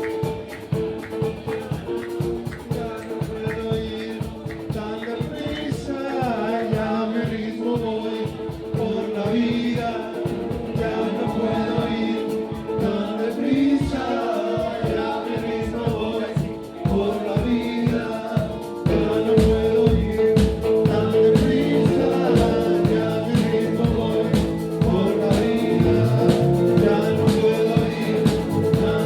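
Live band playing a groove: held organ chords over fast, busy bongo and drum percussion, growing louder about two-thirds of the way through.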